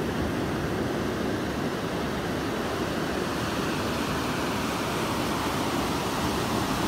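Ocean surf breaking and washing up the beach, a steady rushing.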